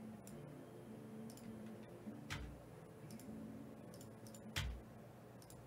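Quiet room with about six scattered faint clicks and taps; two of them, about two and a half and four and a half seconds in, are louder and carry a dull thump.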